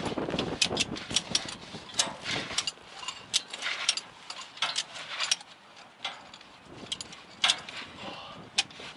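Ratchet tie-down strap being cranked tight: a run of irregular sharp clicks from its pawl, about two or three a second.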